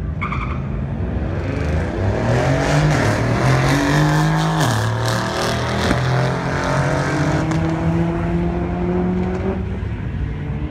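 Two turbocharged cars, a VW Jetta's 1.8-litre turbo four-cylinder and a twin-turbo BMW, accelerating hard in a drag race. Their engines rev up through the gears, the pitch climbing and falling back sharply at the shifts about four and a half and six seconds in, then running on at full throttle down the strip.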